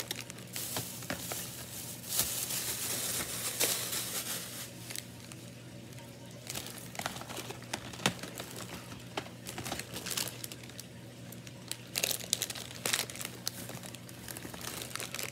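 Plastic bags and wrappers crinkling and rustling in irregular bursts as items are rummaged through by hand, with small knocks from things being handled.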